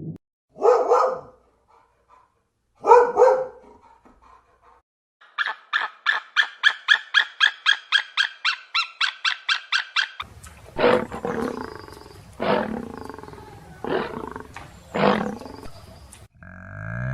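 A string of loud animal calls in three parts. First come two short calls near the start. Then comes a rapid run of about twenty pulsed calls, several a second, for about five seconds. Last come four loud calls a second or so apart.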